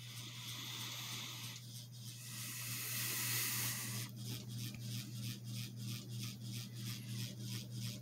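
Cheap mid-2000s ceiling fan, a little worn and with its blades out of alignment, running on medium speed. It gives a steady motor hum with a rhythmic rubbing scrape two or three times a second, a little racket. A louder hiss swells for about a second and a half near the middle.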